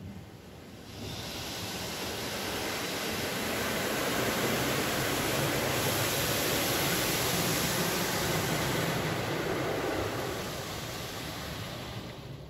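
Water from a Mark VII ChoiceWash XT car-wash gantry spraying over the car, heard from inside the cabin: a steady hiss that builds about a second in and fades near the end.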